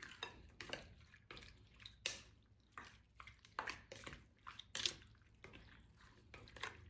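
Faint, irregular wet clicks and taps, about one or two a second: seasoned raw peeled shrimp being handled and tossed in a bowl.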